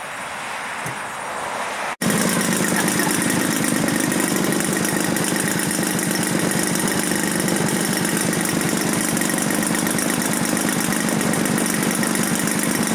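Gasoline engine of a 40% giant-scale Yak-54 model aeroplane idling steadily on the ground. It comes in abruptly about two seconds in, after a short stretch of quieter hiss.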